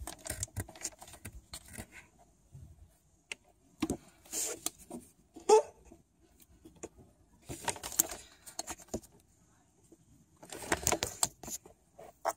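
Hydraulic bucket lifters in the cylinder head of a Mercedes-Benz 500E's M119 V8 being pressed and handled by fingers with the camshafts off, giving scattered small metallic clicks and scrapes while the defective lifter is sought. A brief pitched squeak about five and a half seconds in is the loudest moment.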